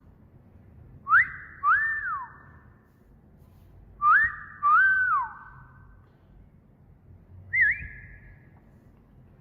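Wolf whistle repeated as a training loop: two full two-note wolf whistles about three seconds apart, each a quick rising note followed by a rising-then-falling note, then a shorter whistle near the end. Each note trails off in an echo.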